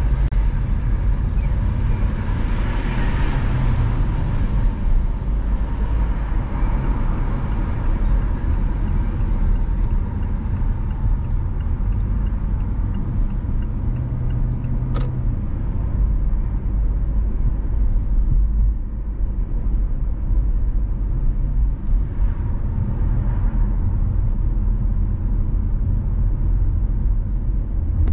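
A car driving through city traffic, heard from inside the cabin: a steady low rumble of road and engine noise. A single sharp click comes about fifteen seconds in.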